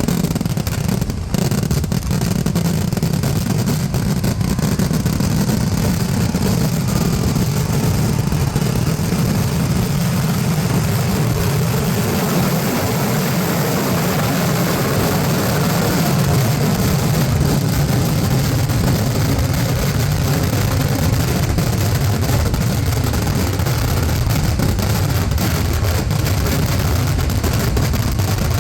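Firecrackers exploding in a dense, continuous barrage, the blasts running together without a break.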